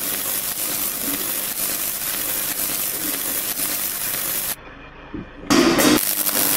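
Electric arc welding on a metal frame: a steady crackling hiss like frying. It cuts off abruptly about four and a half seconds in and starts again a second later.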